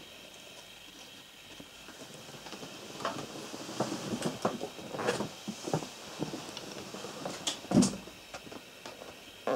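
Handling noise from a handheld camera: scattered light knocks and rustles, with one louder thump just before eight seconds in, over a faint steady hiss.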